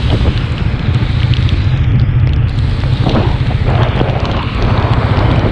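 Wind buffeting the microphone of a camera on a moving motorcycle as a steady, fluttering rumble, with the motorcycle's engine running underneath and the hiss of tyres and spray on a rain-soaked road.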